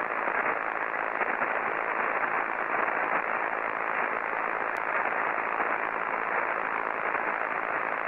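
Steady static hiss of an untuned analog television, dull-toned with little treble.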